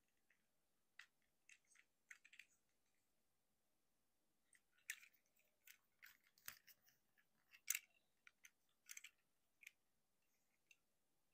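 Plastic clicks and snaps of a Transformers Legacy United Voyager Class Motormaster action figure being transformed by hand, as its joints and parts are moved and pushed into place. The clicks come scattered and short, with the loudest about five and eight seconds in.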